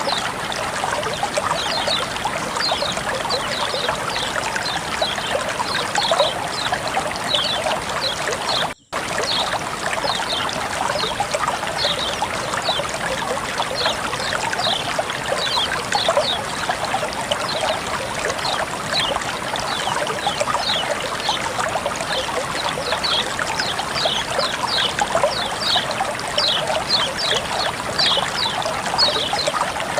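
Flowing water trickling and splashing steadily, with many quick bright plinks over the rush. The sound drops out for a moment about nine seconds in.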